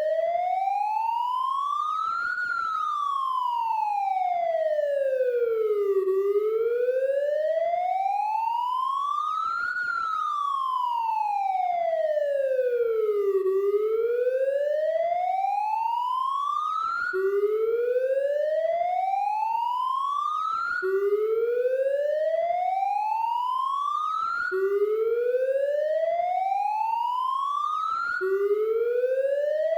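Police siren wailing: a single tone sliding slowly up and back down twice, each rise or fall taking nearly four seconds. A little past halfway it changes to rising sweeps that drop back abruptly to the low pitch and start again, about one every three and a half seconds.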